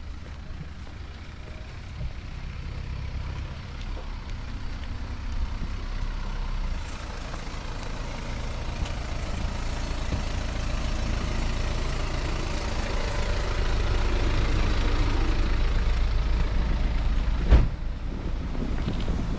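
A motor vehicle's engine running close by, a low rumble that grows steadily louder over about ten seconds, with one sharp knock near the end.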